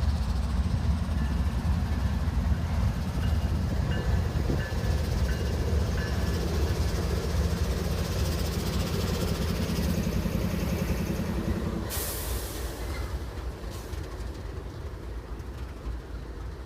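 Commuter train passing close by, a steady low rumble with wheel clatter. About twelve seconds in there is a short hiss, and the rumble then grows quieter as the train moves away.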